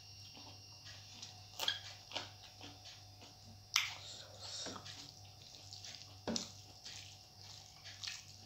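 Close-up eating sounds of rice and curry eaten by hand: wet chewing and mouth clicks, with fingers mixing rice on a steel plate. Scattered sharp clicks, the loudest a little under four seconds in and another past six seconds.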